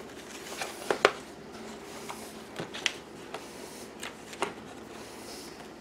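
Paper and cardboard board-game components being handled: light rustling with a handful of small sharp clicks and taps scattered through.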